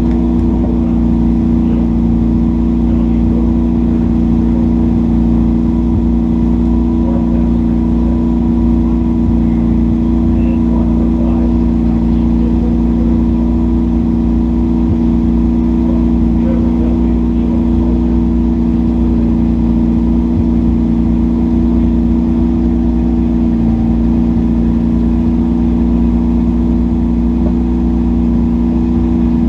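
A junkyard race car's engine running loud and steady at a held speed, with only a slight dip in pitch near the end.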